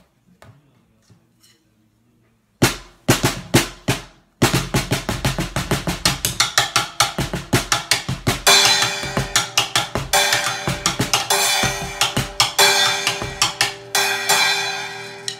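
Snare drum struck with wooden sticks through a black rubber mute pad laid over its head. A few separate strokes come about two and a half seconds in, then after a short pause a fast, steady run of strokes that turns brighter and rings more from about eight seconds on.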